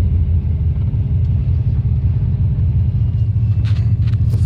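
Steady low rumble of engine and road noise heard inside a moving vehicle's cabin, with two brief clicks near the end.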